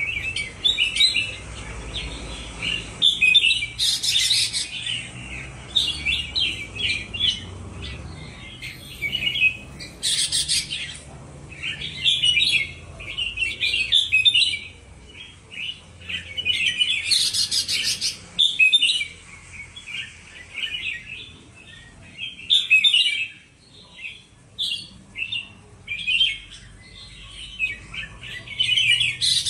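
Two caged red-whiskered bulbuls singing against each other, trading quick, bright, chattering phrases with hardly a break. Every few seconds one lets out a louder, harsher burst.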